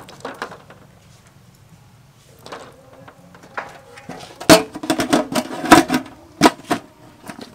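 Aluminium lid being set onto a large metal cooking pot: a quick run of loud metallic clanks and knocks with a short ringing, starting about halfway through, after a few faint knocks.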